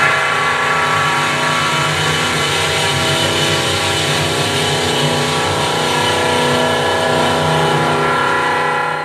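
Loud runway-show soundtrack over the venue's sound system: a dense, steady mass of many held tones.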